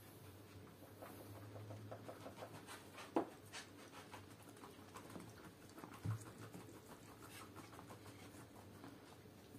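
Cat eating raw chicken from a hand: faint wet chewing and licking, a run of small clicks and smacks, with a louder click about three seconds in and another about six seconds in.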